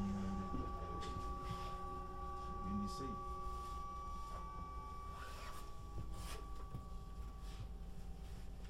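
Inside a Bombardier/Alstom class ET 422 S-Bahn electric multiple unit running between stations: a steady electric whine from the traction drive, several tones at once over a low rolling rumble. The highest tone fades out near the end.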